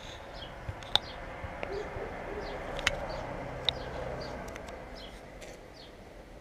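Daytime outdoor ambience of small birds chirping, short high notes repeating every second or so, with a few low cooing notes about two seconds in. Several sharp clicks stand out over the birds.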